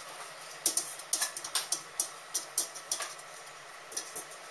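Enoki mushrooms being pulled apart by hand and dropped into a clay nabe pot: a run of irregular light clicks and rustles.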